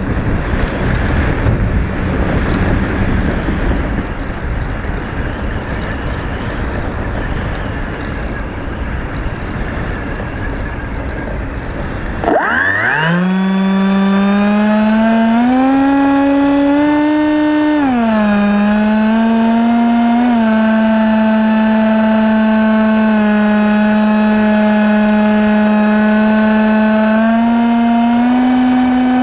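Wind rushing over the onboard camera of a remote-control plane gliding without a motor tone. About twelve seconds in, the propeller motor throttles up with a quick rising whine, then runs steadily, its pitch stepping up and back down a few times with the throttle.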